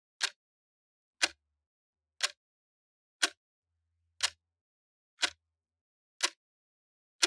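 Clock ticking, one sharp tick each second with silence in between.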